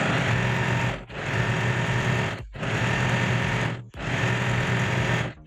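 Usha Janome Dream Stitch electric sewing machine stitching a seam through buckram canvas. It runs in four steady spells of about a second and a half each, with a brief stop between them.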